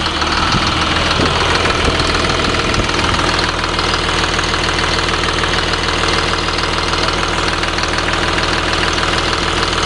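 Caterpillar 3126 inline-six turbo diesel idling steadily, heard close up in the open engine bay with the dipstick pulled for a blow-by check. The engine runs evenly, and the seller calls it absolutely no blow-by, a tight engine.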